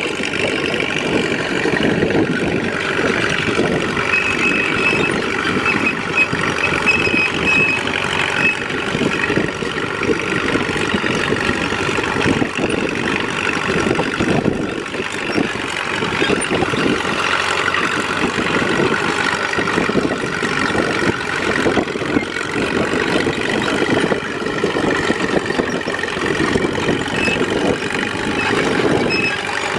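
1941 Caterpillar D2 crawler tractor's four-cylinder D3400 diesel running steadily under load as the crawler pulls a two-bottom moldboard plow.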